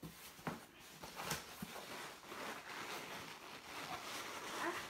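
Cardboard box and packing being handled and rummaged through: a few sharp knocks in the first two seconds, then steady rustling.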